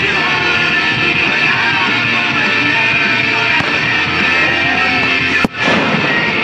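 Rock music with guitar playing steadily, cut by one sharp bang near the end.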